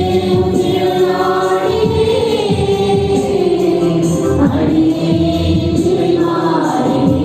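Church choir singing a Tamil devotional hymn, holding long sustained notes.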